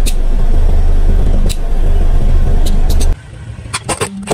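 Car running close by with a heavy low rumble, which cuts off suddenly about three seconds in. After that come a few sharp cracks as the tyre rolls onto a plastic cup and crushes it.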